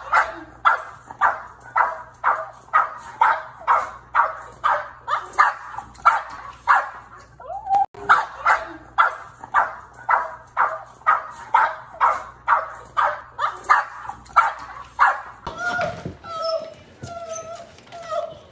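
A dog barking excitedly in a rapid, unbroken string of about three barks a second, with a short break about halfway through. Near the end a dog whines in high, wavering tones.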